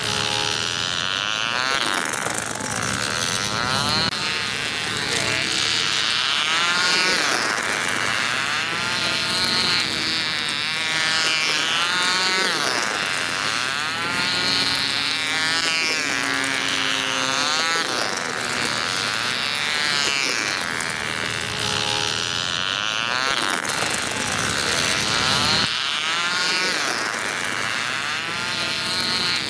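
Tiny glow-less model diesel engines of 1950s IC rail cars buzzing at high revs, the pitch swinging up and down every couple of seconds as the cars lap the track.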